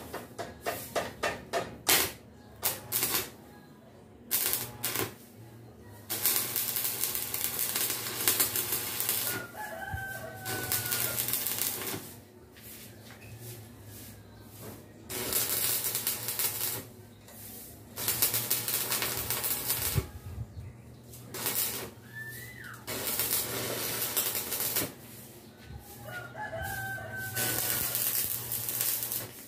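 Electric arc welding crackling and sizzling in stretches of several seconds, stopping and starting again, after a quick run of sharp taps in the first two seconds. Roosters crow several times in the background.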